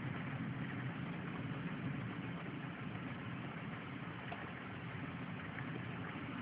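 A car engine idling steadily, a low even rumble heard from inside the car, most likely the Monte Carlo SS's 3.8-litre V6.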